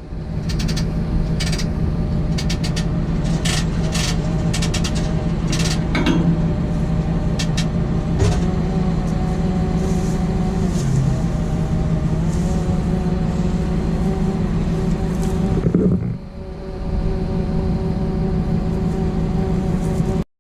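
Hopto H-1900 hydraulic excavator's engine running steadily, with sharp metallic clicks and knocks over the first six seconds and a brief dip in level about sixteen seconds in.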